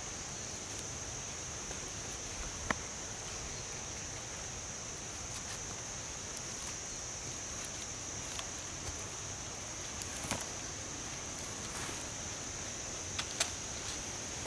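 Insects buzzing steadily at a high pitch, with a few soft clicks and taps from a knife trimming raw chicken over a clay bowl.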